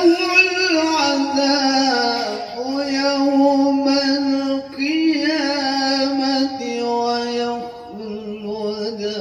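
A man reciting the Quran in melodic tilawah style, holding long ornamented notes in several drawn-out phrases. These are the closing phrases of the recitation.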